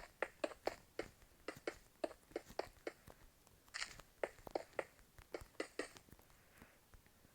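A rapid, uneven run of short sharp clicks, about three or four a second, thinning out near the end.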